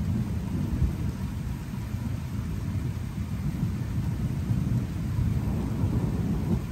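Thunder rumbling low and continuously from a storm, with no sharp cracks.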